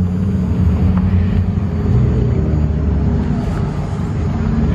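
Car engine and exhaust running with a steady, deep rumble.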